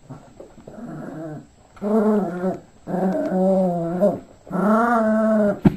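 Yorkshire terrier making four drawn-out play growls, each about a second long with a slightly bending pitch, followed by a sharp click near the end.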